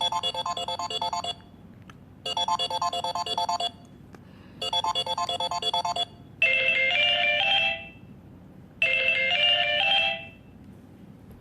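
Samsung Galaxy J4+ stock ringtone playing: a quick pattern of bright electronic notes about a second long, repeated three times with short gaps, then a different, lower phrase played twice.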